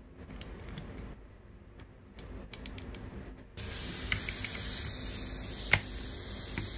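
Small metal clicks as a clutch holder and socket are fitted to the clutch. About three and a half seconds in, a steady hiss of compressed air starts as the pneumatic impact wrench is set running on the clutch nut.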